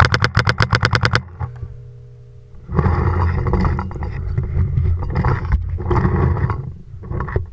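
A paintball marker fires a rapid string of about a dozen shots in just over a second. It is followed by several seconds of loud, rough rustling and knocking from running between bunkers.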